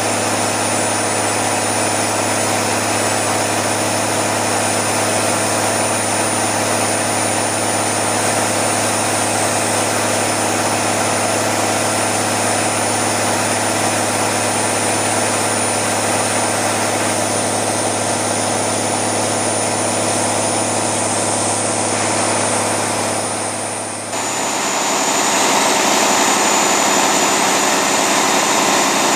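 A 13.3-litre turbocharged diesel railcar engine, built for KiHa 201/261 DMUs, running steadily on a test stand, with the high-pitched whine of its turbocharger mixed in. Near the end the sound changes abruptly: the deep hum drops away and the whine sits a little lower.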